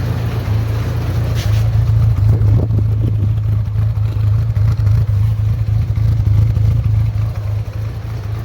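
Motorcycle engine idling on choke just after being started, running steadily.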